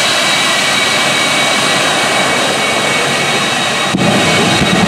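Twin Westinghouse J34 turbojet engines of a jet truck running loud and steady, with a high turbine whine over a rushing roar. About four seconds in, a deeper, heavier rumble takes over as the afterburners are lit.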